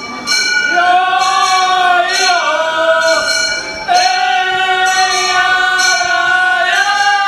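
Gion-bayashi festival music: several bamboo transverse flutes holding long, wavering notes, over small hand-struck gongs (kane) ringing about once a second.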